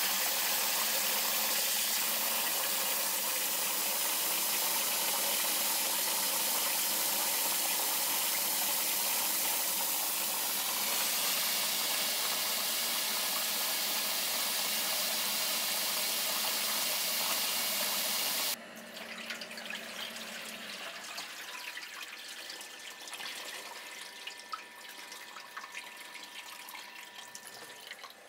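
Tap water running steadily into a metal bowl of salmon roe in a stainless steel sink as the roe is rinsed. The water shuts off suddenly about two-thirds of the way through, leaving faint drips and small splashes.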